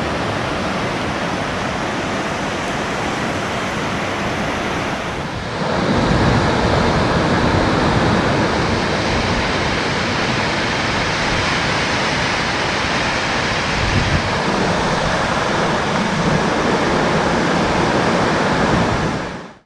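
Waterfall's steady rush of falling water, growing louder and fuller about five seconds in, then cutting off to silence at the very end.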